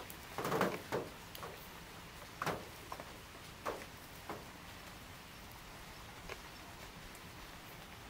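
Irregular soft taps and knocks, the loudest two about half a second and one second in, then single ones every second or so until about six seconds in: heavy raindrops dripping onto the car.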